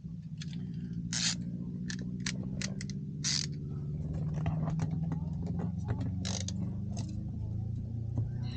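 Hard plastic trim at the rear-view mirror mount clicking, creaking and scraping as it is worked loose by hand, with a few short louder scraping rasps. A steady low hum runs underneath.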